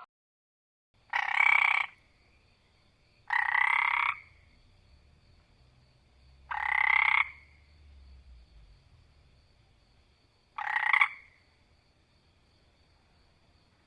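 An animal call repeated four times, each call under a second long, with a few seconds of quiet between them.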